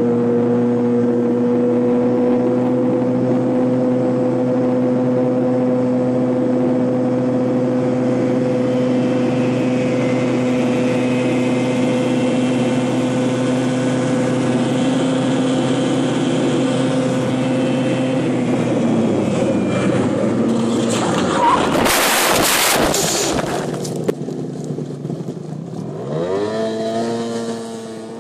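Piaggio Zip 50 scooter engine held at a steady high note at full throttle, with wind rush. About 19 s in the note drops away, and a couple of seconds later a loud harsh scraping noise lasts about two seconds as the scooter crashes and slides. Near the end a scooter engine revs up briefly over quieter background noise.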